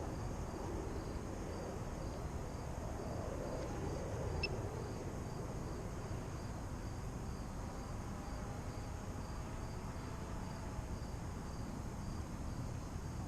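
Wind buffeting the microphone in a steady low rumble, with a faint, high, evenly pulsing insect trill like crickets running underneath.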